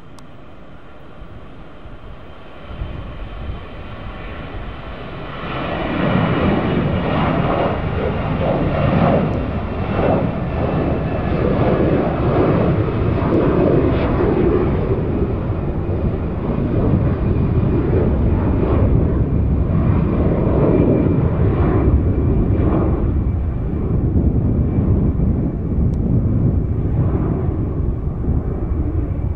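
Jet engines of an easyJet Airbus A320-family airliner at takeoff thrust, climbing out after lift-off. The noise swells about five seconds in and stays loud and steady, with a faint whine slowly falling in pitch.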